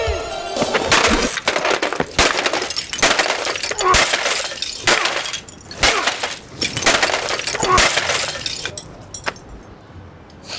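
A portable cassette boombox being smashed apart on the pavement: about eight hard blows roughly a second apart, each with plastic cracking and pieces clattering, its music cutting off as the first blow lands. The blows stop near the end.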